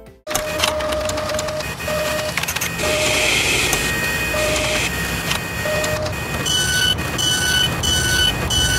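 Mechanical sound effects for an animated machine: steady whirring and clattering with short beeping tones that come and go. From about six and a half seconds in, the beeps repeat about twice a second.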